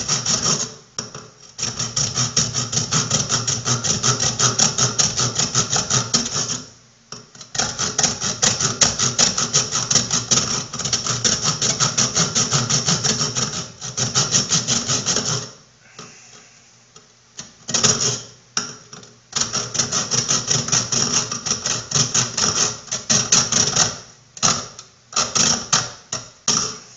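Hand saw sawing into a drain extension pipe in quick back-and-forth strokes to start a notch through the pipe wall. The sawing comes in several runs, with short pauses about a second in and about seven seconds in, and a longer break past the middle.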